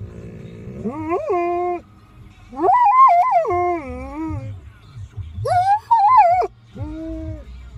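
Flat-coated retriever howling: four drawn-out howls, each rising in pitch and then sliding down, the second and third the loudest.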